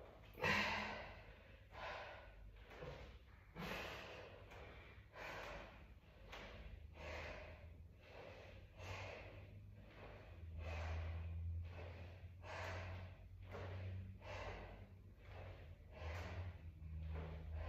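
A woman breathing hard from exertion during a workout: short, forceful breaths in a quick, even rhythm, a little under two a second.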